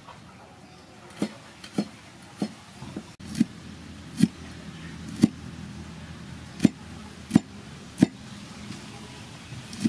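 A cleaver slicing fresh chilies on a thick wooden chopping board: about ten separate sharp knocks of the blade hitting the wood, at an unhurried pace of roughly one a second.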